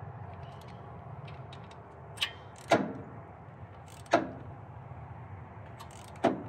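Ratchet head and socket of a digital torque wrench on the rocker cover bolts as they are tightened in passes: faint ratchet ticks, and four sharp metallic clicks spread over a few seconds as the socket goes from bolt to bolt.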